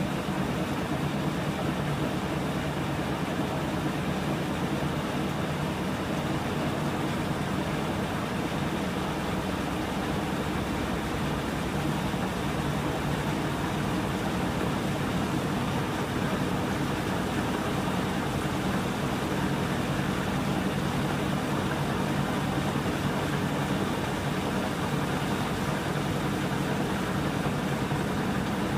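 Samsung top-load washing machine spinning its drum on a towels cycle: a steady motor-and-drum hum that holds even throughout.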